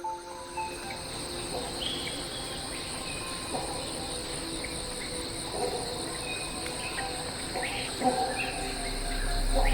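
Rainforest ambience: a steady, high-pitched chorus of crickets and other insects, with scattered short calls over it. A low rumble swells near the end.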